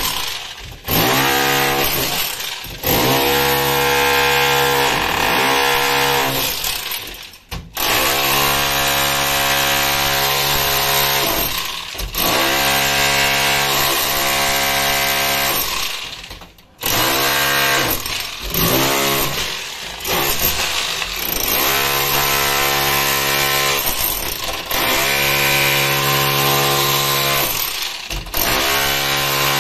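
Corded SDS rotary hammer with a chisel bit chipping plaster and brick off a wall, its rapid blows blurring into a steady, even buzz. It runs in stretches of a few seconds, stopping briefly several times as the chisel is repositioned.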